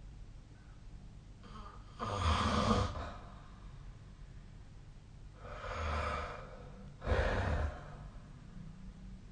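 A person snoring in their sleep: three noisy snoring breaths, about two seconds in, around six seconds in, and about seven seconds in. The first and last start abruptly; the middle one swells up more gradually and is softer.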